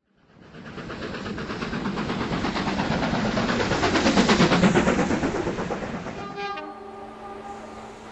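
A train passing, with a rhythmic clatter that grows louder to a peak about halfway through and then dies away. Near the end a chord of steady, horn-like tones sounds and fades, leaving a low hum.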